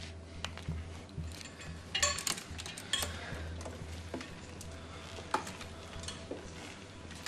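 Small clicks and clinks of a patient's IV line and its plastic fittings being handled, clustered about two to three seconds in, over a steady low hum.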